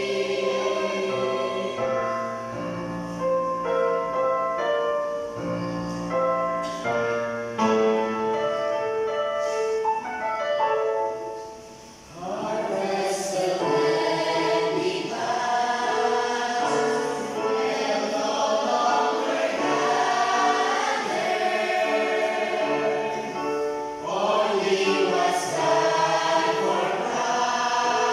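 A mixed choir of male and female voices singing a gospel hymn in parts, with sustained notes moving in steps. About halfway through the singing thins to a brief lull, then the full choir comes back in, louder and fuller.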